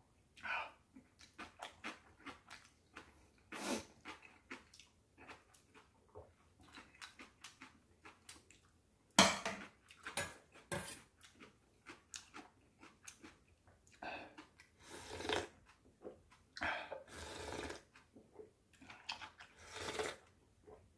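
Eating sounds of a noodle-soup meal: serving utensils clicking and clinking against bowls, with one sharp clink about nine seconds in. Later come longer stretches of slurping and chewing of clam kalguksu noodles and broth.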